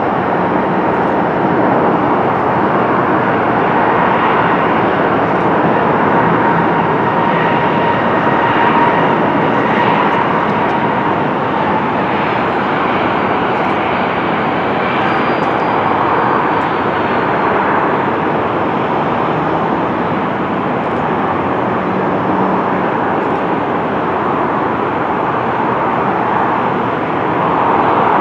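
Boeing 747-400 freighter's four jet engines at takeoff thrust as the heavily loaded plane climbs out, a loud steady jet noise with a faint whine in the first half.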